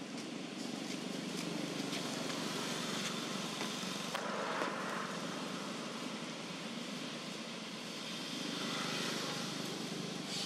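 Road traffic passing: motor vehicle noise that swells and fades twice.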